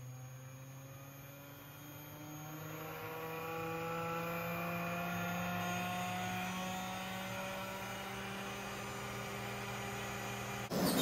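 Air compressor's electric motor and screw compressor unit running: a steady hum with a whine that rises in pitch over the first few seconds as it speeds up, then holds steady. A sudden loud hiss cuts in right at the end.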